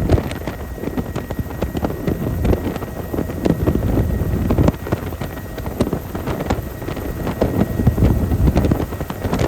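Helicopter in flight heard from on board, with wind buffeting the microphone in loud, irregular gusts and thumps.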